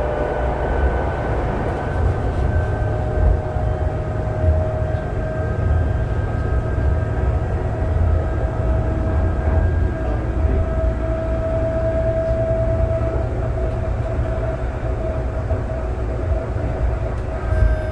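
Inside a Calgary CTrain light-rail car at speed: a steady low rumble of wheels on rail with a steady whine, and a slightly louder bump near the end.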